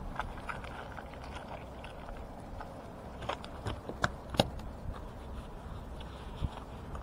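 Sharp knocks and taps on wooden pier planks, a cluster of them from about three to four and a half seconds in and a dull thump near the end: a freshly landed fish flapping on the boards.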